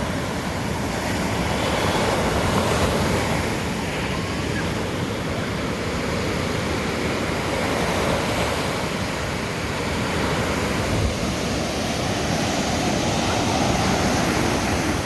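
Sea surf breaking and washing onto the beach, rising and falling in slow swells, with wind rumbling on the microphone.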